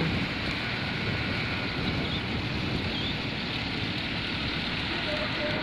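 Steady rush of wind over the microphone mixed with road noise from a moving motorcycle.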